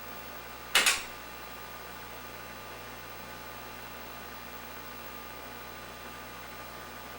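A brief, sharp double burst of noise about a second in, over a steady electrical hum and hiss.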